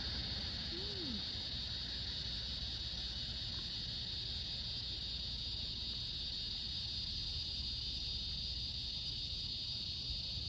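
Steady chorus of evening insects, an even high-pitched drone, over a low steady rumble.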